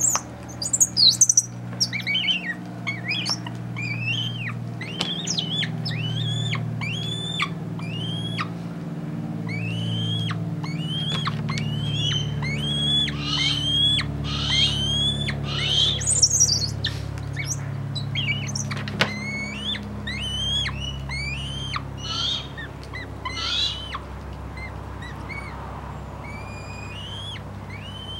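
Young male goshawk (albidus × atricapillus) calling over and over: short, sharp, upward-sweeping chirps about two a second, thinning out near the end. These are the repeated food-begging calls of a young hawk that is waiting to be fed and is getting frustrated.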